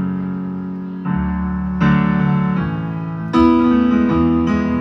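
Solo keyboard playing sustained piano chords, a new chord struck every second or so, as the opening of a song.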